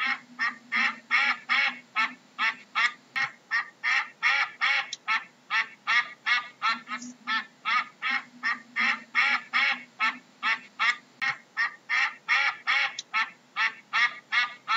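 Ducks quacking in a rapid, unbroken run of short calls, about three a second.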